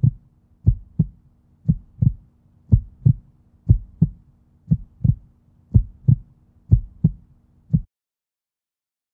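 Heartbeat sound: paired low thumps, lub-dub, about one beat a second over a faint steady hum. It cuts off abruptly about a second before the end.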